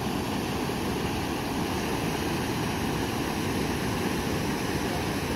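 Steady low roar of floodwater pouring over a concrete dam spillway.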